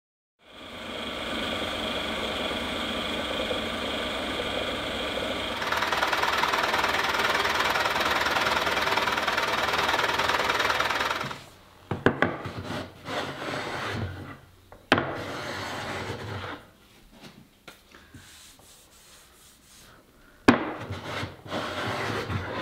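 A power tool runs steadily and gets louder about a third of the way in, then stops just past the middle. It is followed by a Japanese wooden hand plane shaving cherry in short uneven strokes, with a few sharp knocks as the plane is set down or tapped.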